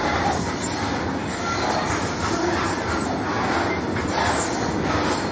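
Freight train of BTPN tank wagons rolling past on the rails: a steady noise of wagon wheels running over the track.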